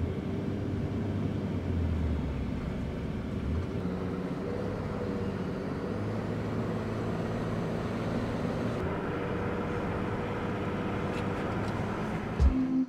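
Pickup truck driving, heard from inside the cab: a steady drone of engine and road noise with a low hum that shifts a little in pitch. Music with a beat comes in near the end.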